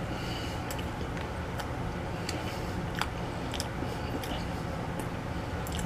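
Close-up chewing of a deep-fried Oreo, with scattered small mouth clicks over a steady low hum.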